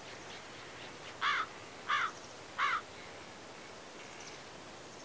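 A crow cawing three times in quick succession, about two-thirds of a second apart, over faint outdoor background.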